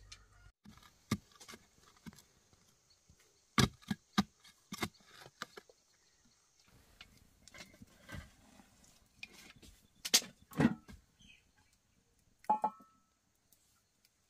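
Irregular knocks and clacks of firewood and metal cookware at an open wood fire, as sticks are prodded into the fire and a cast-iron skillet is set on the iron trivet. One knock near the end rings briefly like struck metal.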